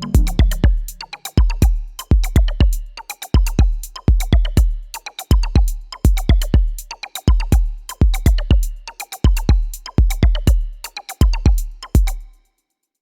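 Electronic background music with a drum-machine beat: a steady pattern of deep kick-drum thuds and sharp clicks. It cuts off suddenly near the end.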